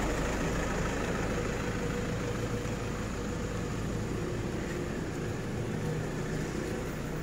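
An engine running steadily at idle: a low, even drone with a few faint steady tones.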